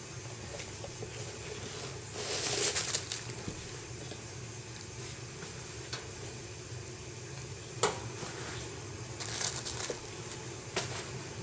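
Leather Caterpillar work boots being handled: two brief stretches of leather and laces rustling, and a couple of sharp single taps, over a steady low hum.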